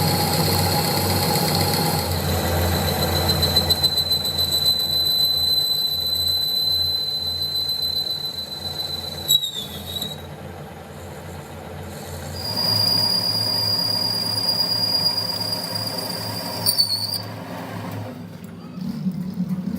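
Machine-shop machine tool working on a crankshaft, running with a low motor hum and a steady high-pitched squeal from the cut. The squeal drops slightly in pitch about two seconds in and stops about halfway. It comes back slightly higher a few seconds later and stops again near the end.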